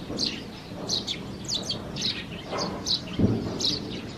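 Small birds chirping, short high notes repeated several times a second. A single dull thud comes about three seconds in.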